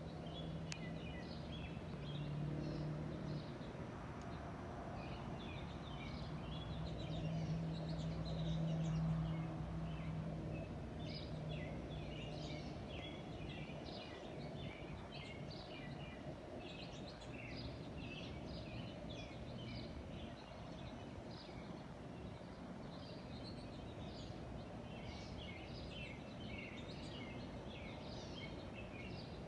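Distant Boeing 747 freighter's jet engines giving a low drone that swells to its loudest about nine seconds in and then fades into background noise, with small birds chirping throughout.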